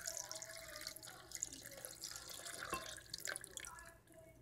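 Water poured in a stream into a glass blender jar onto chopped apple pieces, splashing and trickling; the pour tapers off about three seconds in.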